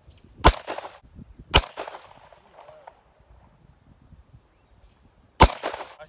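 Three rifle shots: two about a second apart, then a third some four seconds later, each a sharp crack followed by a short fading echo.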